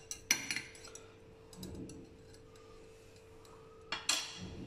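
Wire whisk clicking and scraping against a glass bowl: a few quick clicks at the start, a quieter stretch, then another short flurry of clicks about four seconds in. A faint steady hum lies underneath.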